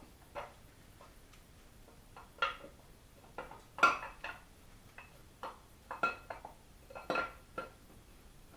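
Steel camshaft of a 6.0 L LQ4 V8 clinking and knocking against the cam bearings and block as it is eased out by hand: irregular metallic clinks with a short ring, the loudest about four seconds in.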